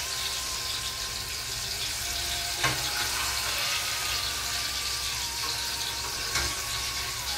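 Battered apple rings deep-frying in a saucepan of hot sunflower oil, a steady sizzling hiss. A slotted spoon knocks lightly on the pan twice as the rings are lifted and turned, once a few seconds in and again near the end.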